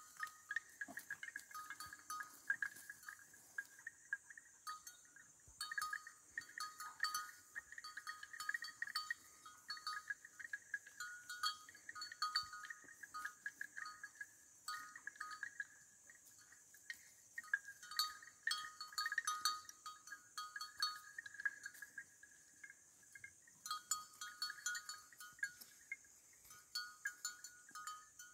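A bell worn by a grazing animal clinking irregularly as it moves, with the steady high drone of insects behind it.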